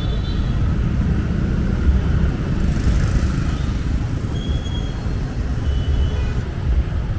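City street traffic: cars and motorbikes running past, a steady low rumble of engines and tyres, with a brief hiss about three seconds in.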